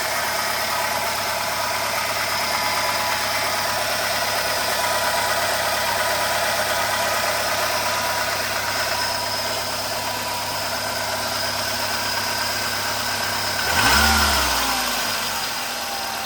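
Renault Logan 1.6 8-valve petrol engine idling with a metallic knocking noise inside the engine, as if something were tapping inside it. It is revved briefly near the end, the pitch rising and then falling. The cause is unknown: the timing belt rollers have already been replaced and the valves adjusted.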